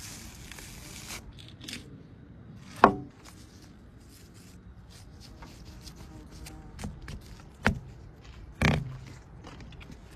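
Knife cutting raw lamb on a wooden board: soft slicing and small ticks, with three louder knocks on the board, one about three seconds in and two close together near the end.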